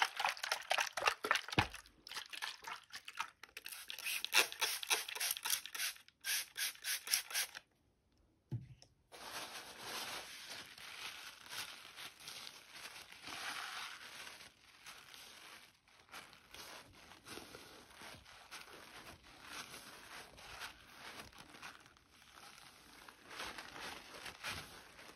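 Rapid tapping and scratching on mirror glass for about eight seconds. After a brief pause, a steadier rubbing across the water-spattered glass follows.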